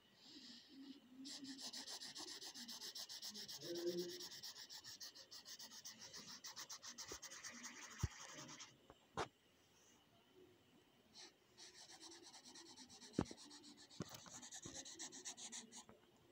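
Felt-tip marker scribbling rapidly back and forth on chart paper, shading a solid black area: a faint, dry rubbing hiss. It pauses after the first half, with a couple of sharp ticks, and resumes near the end.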